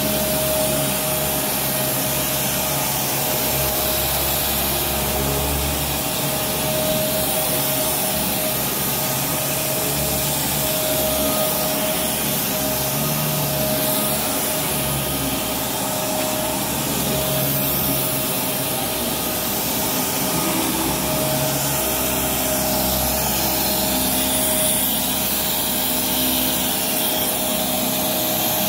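Kenmore Progressive direct-drive upright vacuum cleaner running on carpet: a steady motor noise with a constant whine, its low rumble shifting slightly as it is pushed back and forth.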